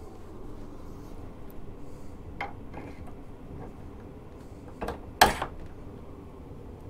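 Low steady background hum with a few light clicks and one sharp knock about five seconds in.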